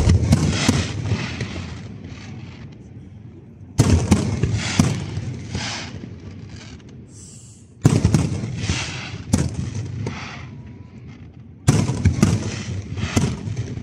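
Fireworks display: four salvos of aerial shells, one about every four seconds, each opening with a loud bang followed by a rapid run of smaller bursts that fades away.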